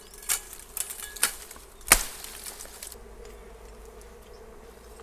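Dwarf honeybees buzzing in a steady hum around their nest. Several sharp clicks and snaps come in the first two seconds, the loudest about two seconds in.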